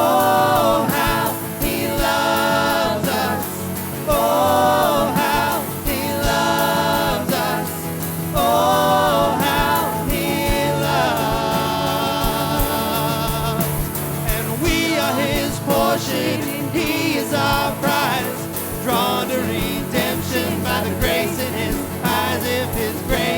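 Live church worship band playing a song, with a sung melody over sustained bass and keyboard-like chords.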